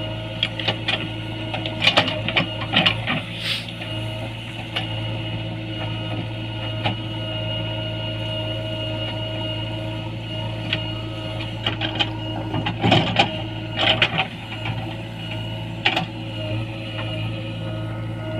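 JCB 3DX backhoe loader's diesel engine running at a steady speed while the machine digs, with bursts of metallic clanks and knocks twice, about two seconds in and again past the middle.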